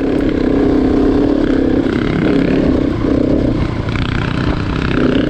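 Single-cylinder off-road motorcycle engine running loud under throttle, swelling up at the start and easing off near the end.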